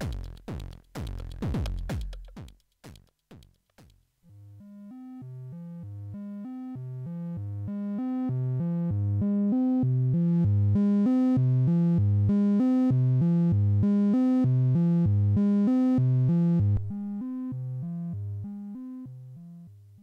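A drum-machine beat of kicks with falling pitch, distorted through an Orobas dual tube amplifier, stops about four seconds in. A monophonic synthesizer sequence then plays through the tubes, growing louder and brighter with distortion as the gain is turned up. Near the end it drops in level and fades out.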